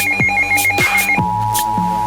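Electronic music with a steady drum beat, carrying a fast warbling, phone-ring-like high tone that gives way about a second in to a steady two-note electronic tone.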